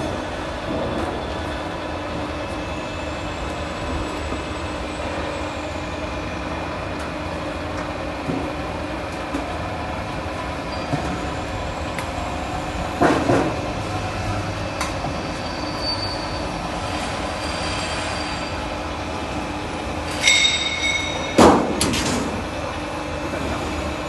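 Lock forming machine running with a steady mechanical hum as a sheet of steel is rolled through its forming rollers. The sheet metal clatters loudly about 13 seconds in, and again near the end after a brief high metallic squeal.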